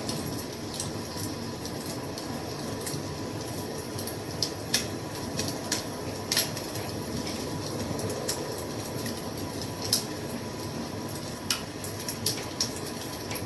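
Wood fire crackling: a steady low rushing with irregular sharp pops and snaps scattered through it.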